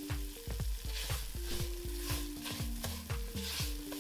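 Silicone spatula stirring and scraping semolina as it roasts in ghee in a non-stick pan, with a soft sizzle underneath. The strokes come in a steady rhythm of about four a second.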